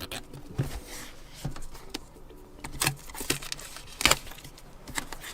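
Cardboard keyboard box being handled and opened: scattered light taps, knocks and scrapes, with a couple of sharper knocks about three and four seconds in.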